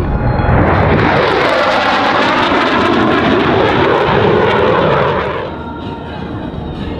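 A fixed-wing military aircraft flying past the crowd. Its engine noise comes up loud about half a second in, holds with a sweeping, phasing sound as it passes, and falls away about five seconds in.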